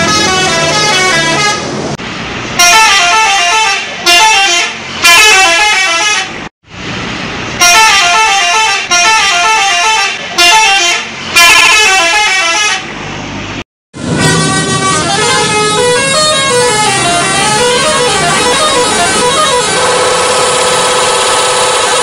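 Telolet multi-tone bus horns playing quick stepping tunes, one loud burst after another. The sound cuts out suddenly twice, and the last horn settles into a steady held chord near the end.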